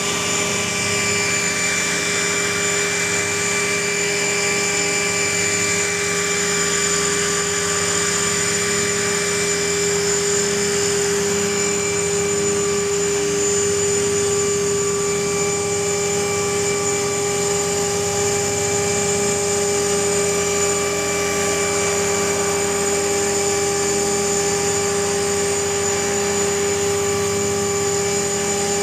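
Align T-REX 500 electric RC helicopter hovering: the steady whine of its brushless motor and drive gears with the spinning rotor, holding an even pitch.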